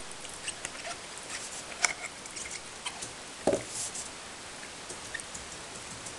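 Rottweiler gnawing on a ribbed chew toy: scattered small clicks and scrapes of teeth on the chew, a sharp click a little under two seconds in, and a dull thump about three and a half seconds in.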